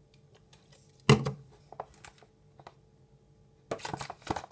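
Handling noises at a table: one sharp knock about a second in and a few light clicks, then near the end a dense run of crackling and rustling.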